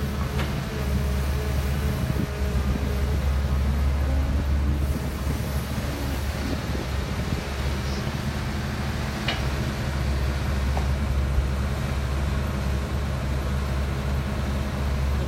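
Dump truck's diesel engine running steadily with an even low drone, as while driving along.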